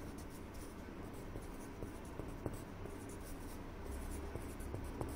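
Pencil writing on paper: soft scratching strokes with scattered light ticks as symbols are written.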